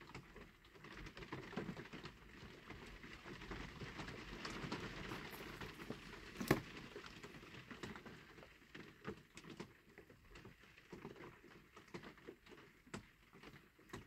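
Faint handling noise from fingers working the front wheel and axle of a diecast toy car: light rubbing and small scattered clicks, with one sharper click about six and a half seconds in.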